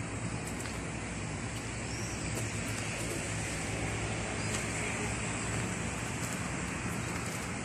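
Steady rumble of road traffic, an even background hum of passing cars with no single vehicle standing out.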